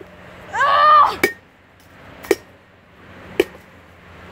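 A hockey stick whacking a pumpkin, three sharp blows about a second apart, as the pumpkin cracks open. A short yell comes just before the first blow.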